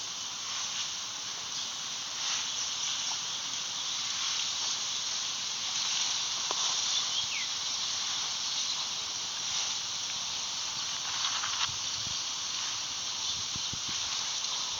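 Steady high-pitched hiss of outdoor background noise, with a few faint short chirps and some soft low knocks near the end.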